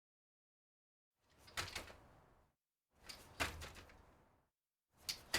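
Three sharp bangs about a second and a half to two seconds apart. Each starts suddenly and dies away over about a second, with dead silence between them.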